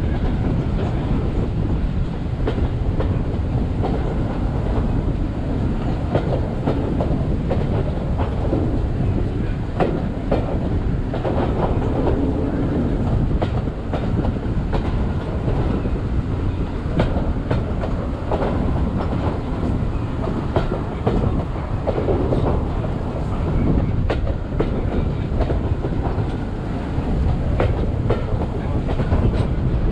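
Railway carriage running along the track: a steady rumble with the clickety-clack of wheels knocking over rail joints.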